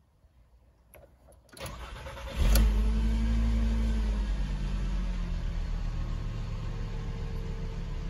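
A 2007 Volkswagen New Beetle's engine being started: a click, a short crank of under a second, then it catches with a brief flare in revs that eases down into a steady idle.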